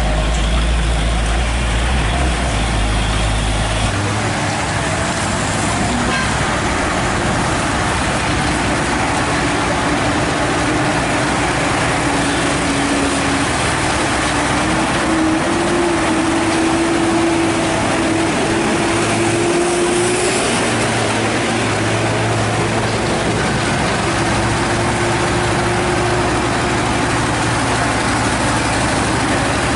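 Heavy truck engine running under steady road noise. A deep rumble drops away about four seconds in, and a faint tone climbs slowly in pitch midway.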